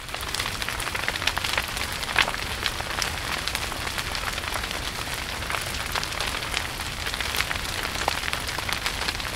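Wood fire crackling in a wire-mesh folding backpacking stove under a cooking pot: a steady hiss of burning twigs with frequent small sharp pops.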